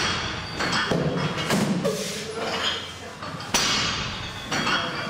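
Heavy thuds of a loaded deadlift barbell, about 250 kg of iron plates, set down on a rubber gym floor between reps; the sharpest impact comes about three and a half seconds in.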